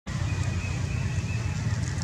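Wind buffeting the microphone: a loud, uneven low rumble, with a faint steady high tone over the first second or so.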